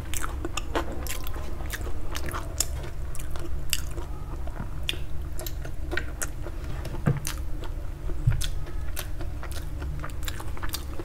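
Close-miked chewing with many quick, wet mouth clicks and smacks.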